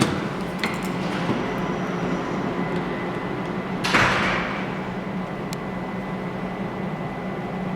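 Steady machine hum, with a few sharp clicks near the start and again later. About four seconds in there is a short, loud rushing noise that fades over about a second.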